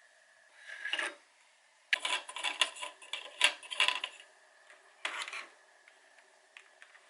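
Hard plastic parts of a Xiaomi electric fan being handled and taken apart: a short rub, then a couple of seconds of clicks, knocks and scrapes, then another short rub.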